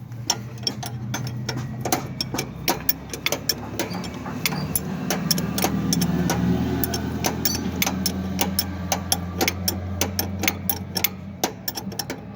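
Repeated sharp metallic clicks and taps, several a second, from hand-tool work on a tractor's brake assembly. Underneath runs a low, steady engine-like hum that swells in the middle and stops near the end.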